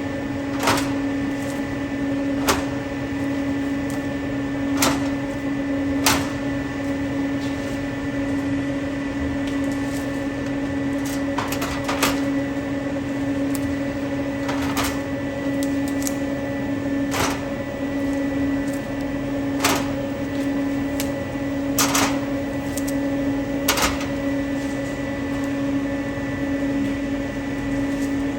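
Steady electrical hum of a refrigerated drink vending machine, with a sharp knock or click every couple of seconds.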